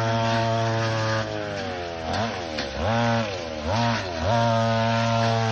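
Small petrol engine of a handheld power tool running at high revs. In the second half it drops back and revs up again about three times.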